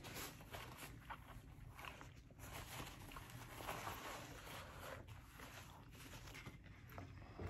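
Faint rustling of a paper napkin wiping the mouth, with soft irregular chewing and mouth sounds.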